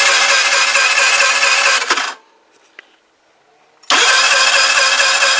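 Tamoretti Retro 50 scooter's electric starter cranking the engine twice, about two seconds each, a steady whine that starts and stops abruptly. The engine turns over without firing, because the ignition is giving no spark.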